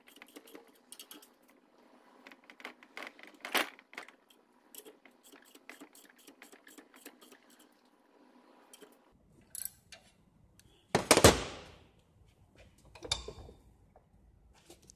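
Metal clicking and clinking as a clamp-type coil spring compressor is worked on a Holden VT Commodore's standard coil spring held in a bench vise, with a sharp knock about three and a half seconds in. A loud metal clunk comes about eleven seconds in, as the spring is handled in the vise.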